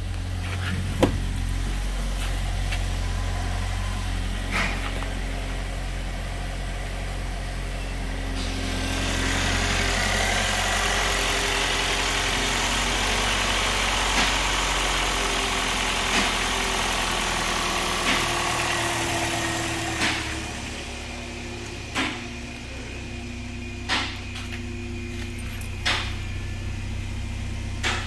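2013 Chevrolet Equinox's 2.4-litre Ecotec four-cylinder engine idling steadily. It is louder and brighter in the middle stretch, heard at the open engine bay. A short sharp knock comes about every two seconds through the second half.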